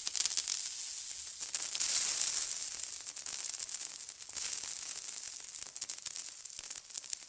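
Metal coin bouncing, rolling and rattling on a hard floor: a dense run of rapid clicks with a high metallic ringing.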